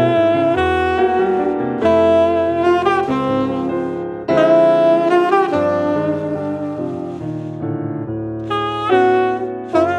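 Tenor saxophone playing a jazz melody of held and moving notes, some with vibrato, over grand piano chords; a new phrase begins about four seconds in.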